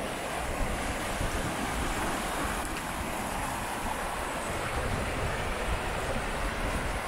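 Fast-flowing mountain creek rushing steadily over shallow rocky riffles, with a low wind rumble on the microphone underneath.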